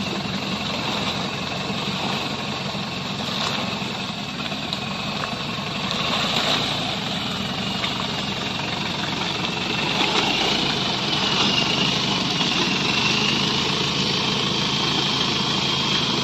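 Engine of a lifted Nissan Big-M pickup running at low revs as it crawls slowly through mud, picking up a little about six seconds in and again about ten seconds in.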